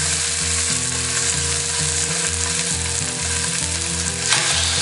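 Raw, seasoned chicken breast sizzling steadily in hot olive oil in a stainless-steel skillet over medium-high heat. The sizzle flares briefly louder about four seconds in.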